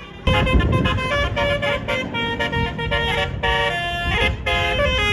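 A bus's 'telolet basuri' melody horn cuts in suddenly, loud, and plays a quick tune of short notes stepping between pitches, with low engine rumble underneath.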